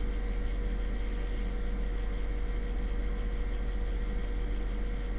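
Steady electrical hum and hiss from the recording setup, with a low drone and a faint steady tone in the middle range. It runs unchanged, with no clicks or other events.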